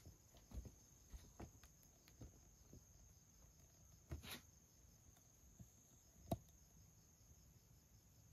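Near silence: quiet room tone with a faint steady high whine and a few soft scattered clicks and knocks, the loudest about six seconds in.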